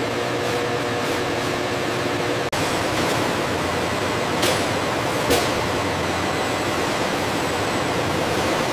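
Steady hiss of factory background noise with a faint hum, broken by a momentary dropout about two and a half seconds in, with two faint ticks a little later.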